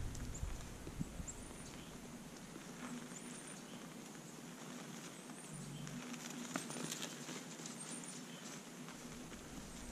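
White-tailed deer feeding in snow, heard as faint scattered clicks and crunches over a low steady hum.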